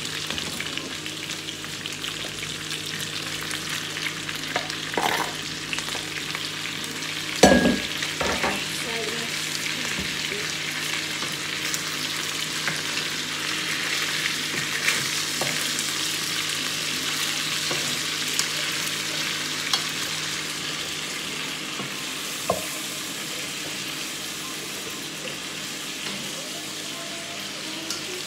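Chicken and chopped vegetables sizzling in a stainless steel frying pan while being stirred with a wooden spoon, with a few sharp knocks against the pan, the loudest about seven seconds in.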